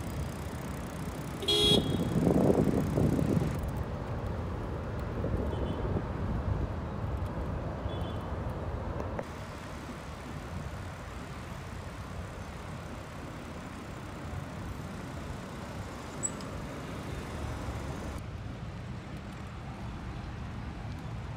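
Road traffic: a steady hum of cars moving along a busy road, with a car horn sounding briefly about a second and a half in.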